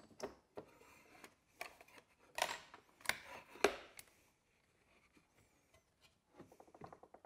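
A router table fence and a wooden board being slid and set by hand, with the router not running: a string of light clicks, knocks and short scrapes of wood on the table top and fence, the loudest about two and a half and three and a half seconds in. A short, rapid rattle starts near the end.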